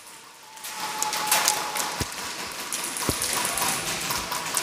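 Airsoft gunfire in a warehouse arena: a dense, rain-like patter of many small clicks as guns fire and BBs strike the plywood barricades, with a few sharper knocks and a faint steady whine beneath.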